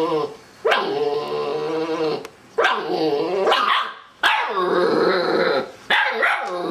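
Siberian husky puppy giving a string of long, wavering growl-barks, four in a row with short breaks between them.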